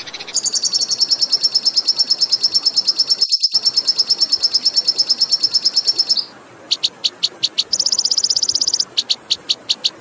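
A songbird singing a long, fast rolling trill of high notes for about six seconds, then a string of sharp separate notes broken by a shorter trill, with another trill starting near the end. Faint flowing water runs underneath.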